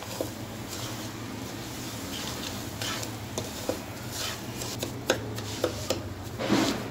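Wooden spatula scraping and tapping against an aluminium pot as semolina is stirred and roasted over a low flame, in scattered short knocks and swishes with a longer scrape near the end. A steady low hum runs underneath.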